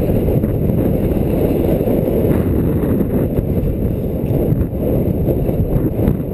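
Inline skate wheels rolling on concrete pavement, a steady low rumble.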